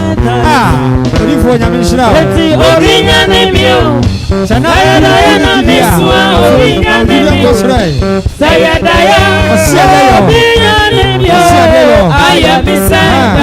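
Music with singing: a lead voice sliding and wavering in pitch over a steady bass line and a drum beat.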